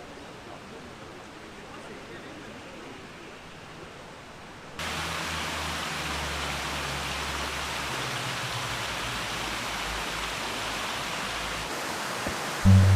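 Steady rushing noise with no distinct events, which jumps suddenly louder and brighter about five seconds in. An acoustic guitar starts just before the end.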